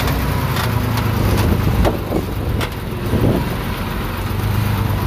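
Diesel engine of heavy earthmoving equipment running steadily, with several sharp knocks now and then.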